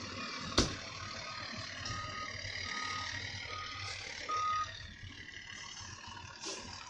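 Fire engine's backup alarm beeping at an even pace, the clearest four beeps about a second apart with the last the loudest, over the low running of the truck's engine. A sharp knock sounds about half a second in.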